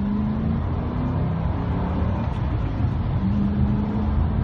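2007 Ford Mustang GT's V8 on its stock exhaust accelerating at half throttle, heard from inside the cabin. The engine note climbs, drops away about half a second in as the five-speed manual is shifted, and picks up again near the end.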